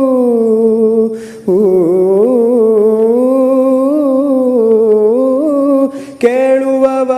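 A man singing solo without words: he holds and bends down the last note of a line, takes a breath, then hums a winding melody for about four seconds, breathes again about six seconds in, and starts the next phrase.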